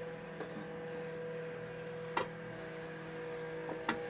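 Power tool running with a steady, faint whine, with three sharp clicks about half a second, two seconds and four seconds in.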